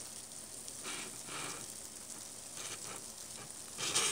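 Paper-pulp egg crate and cardboard box rustling and scraping as they are handled, over a steady hiss. There are a few soft scratchy bursts, and a louder one near the end.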